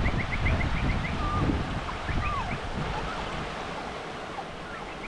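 River water rushing steadily, with wind buffeting the microphone in the first couple of seconds. High chirped notes come in quick runs over the water, near the start and again after about two seconds, along with a few sliding whistles.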